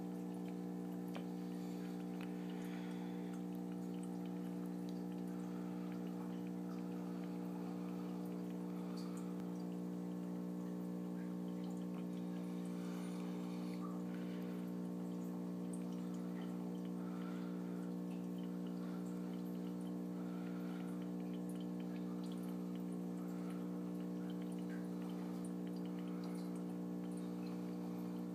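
Steady electric hum of aquarium equipment such as a pump or filter, with water trickling and dripping into the tank and faint scattered ticks.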